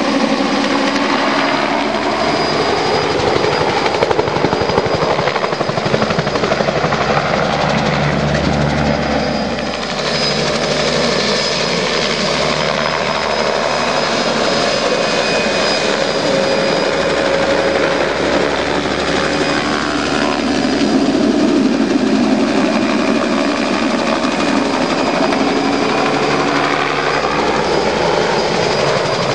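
Turbine-powered Hiller helicopter flying low past with a long-line sling load, its rotor and engine running steadily. The pitch sweeps up and down as it passes back and forth, over a high steady whine.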